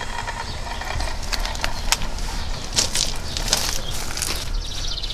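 Footsteps crunching on loose gravel, irregular crackles and clicks densest in the middle, over a low rumble of handling noise from the camera being carried.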